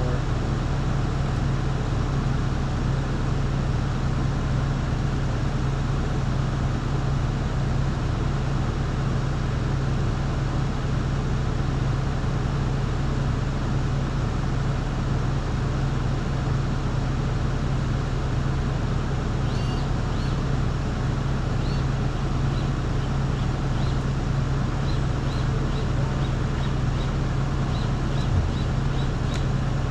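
An engine running steadily at one constant speed, a low even hum with no revving. A series of short high chirps comes in over the last ten seconds.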